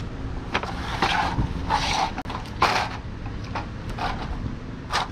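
Scrap metal being handled: scattered clanks and knocks with rasping scrapes, a cluster of knocks near the end, over a steady low rumble.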